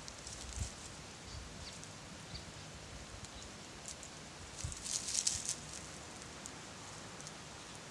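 Dry fallen leaves crackling and rustling as a Sphynx cat paws at the leaf litter, with scattered small crackles and a louder burst of crackling about five seconds in.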